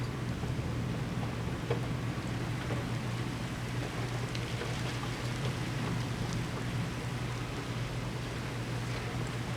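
Rain falling steadily in a severe thunderstorm, with scattered sharp drop ticks over an even hiss and a steady low rumble underneath.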